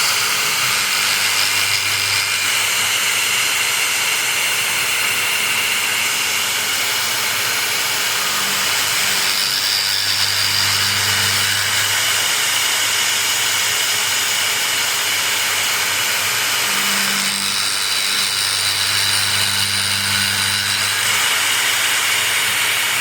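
Small CNC milling machine running a cut: a steady spindle and cutting noise with high whining tones, and a low hum that swells and fades a few times as the tool moves along its path.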